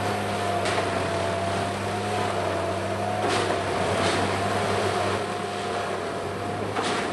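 Railway ballast tamper running, its engine and hydraulics giving a steady drone with a held whine, broken four times by brief sharp strokes as the tamping heads drive their tines into the ballast.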